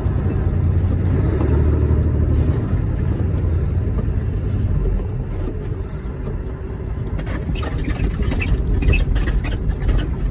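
Low engine and road rumble heard inside a semi-truck's cab while driving, easing about halfway through, with a run of short clicks and rattles in the last few seconds.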